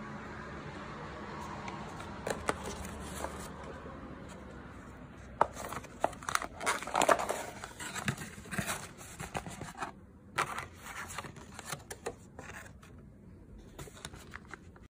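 Cardboard box and plastic treat packaging being handled and rustled: crinkling with sharp clicks, busiest in the middle and thinning out near the end.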